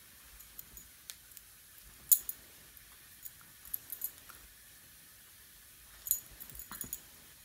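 Scattered light clicks and jingles as a small dog noses at a fidget spinner held on an open hand, with the loudest click about two seconds in and a quick cluster of them around six seconds in.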